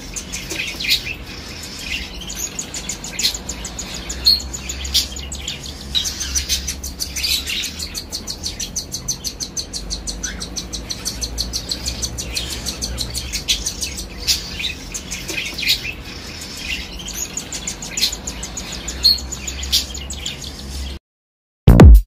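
Newly hatched parrot chicks begging in the nest: a fast, steady run of short, high peeps, over a faint low hum. It cuts off about a second before the end.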